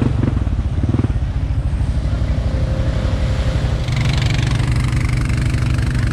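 Honda ATV engine running at a steady, low throttle, its rumble pulsing. A hiss joins in about four seconds in.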